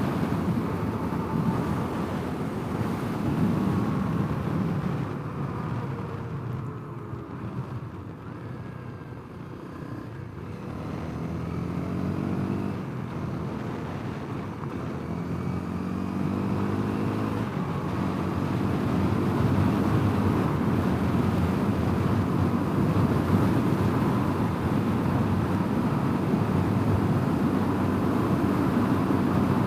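Honda CRF250L's single-cylinder engine easing off and slowing, then pulling away and revving up through several gears, then holding a steady cruise with wind rushing over the helmet-mounted microphone.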